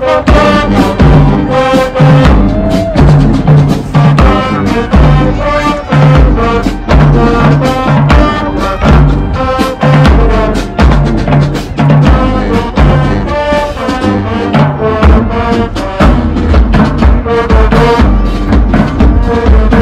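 High school marching band playing loud brass over drums with a steady beat, coming in suddenly.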